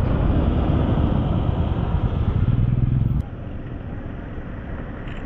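Royal Enfield Himalayan's single-cylinder engine running at idle, a rough low rumble. About three seconds in it drops suddenly to a much quieter steady rumble.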